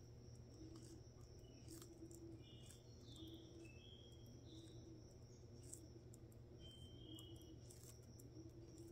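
Hermann's tortoise biting and chewing romaine lettuce: faint, irregular crisp crunches over a low hum. A few faint high chirps come around three seconds in and again about seven seconds in.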